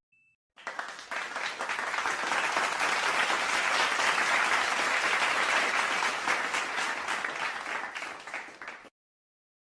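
A crowd applauding. The clapping swells up over the first couple of seconds, holds, then dies away and stops near the end.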